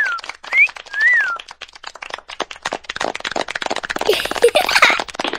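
Cartoon sound effects: a few short whistled glides, rising and falling, in the first second and a half, over a fast run of clicks that grows denser in the second half.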